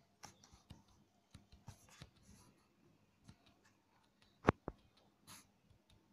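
Hands squeezing wet grated ash gourd in a steel bowl to press the water out: faint, soft squishing and rustling, with two sharp clicks close together about four and a half seconds in.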